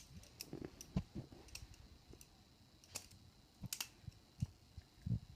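Butterfly knife trainer being flipped by hand: faint, irregular clicks and clacks as the handles and blunt trainer blade swing and knock together, a handful spread over the few seconds.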